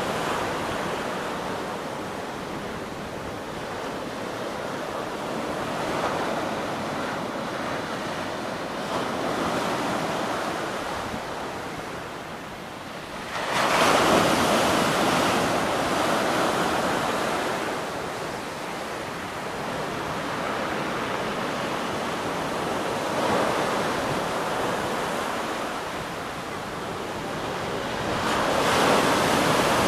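Sea waves breaking and washing ashore in slow swells, the biggest surge about halfway through and another near the end, with wind buffeting the microphone.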